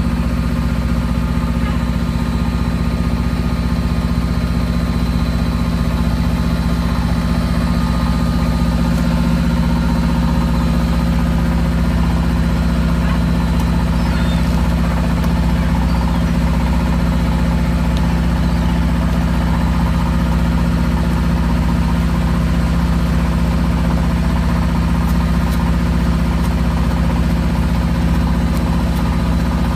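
Boat engine running at a steady, even speed, a constant low hum.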